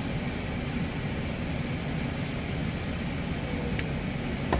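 Maple syrup at a hard rolling boil in a stainless steel pot over a gas burner, heard as a steady low rumbling noise, with a faint click near the end. The syrup is being boiled to its finishing point, which the maker believes it is already past (219 °F).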